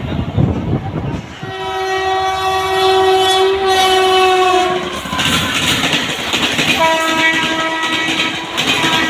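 Indian Railways electric locomotive's air horn sounds a long chord-like blast about a second and a half in. Then comes the rattling clatter of the train passing at speed. The horn sounds again around seven seconds in.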